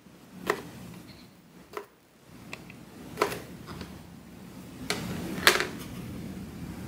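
Crinkle cutter chopping a pickle on a plastic cutting board set on a metal tray: about seven sharp clicks and knocks, the loudest about three and five and a half seconds in, over a low rumble that rises about two seconds in.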